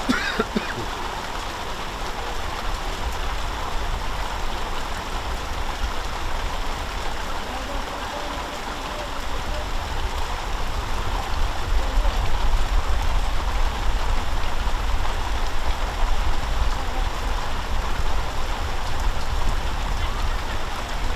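Wind buffeting the microphone: a steady rushing noise with a heavy low rumble that grows stronger about halfway through, with faint voices in the distance.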